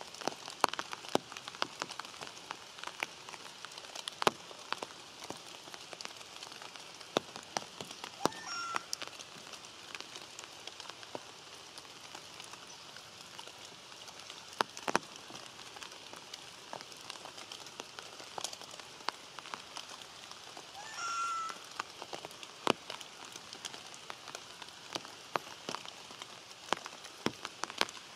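Steady rain hissing, with many irregular drop ticks. A brief high-pitched call sounds about 8 seconds in and again, louder, about 21 seconds in.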